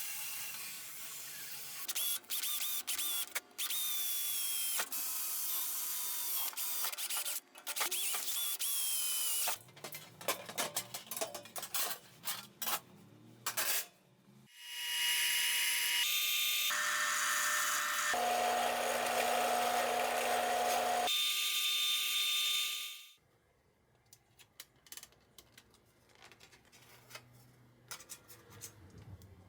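Power tools running in several stretches, with clicks and knocks of handling between them. The loudest is a steady run in the middle that shifts pitch in a few steps before stopping abruptly.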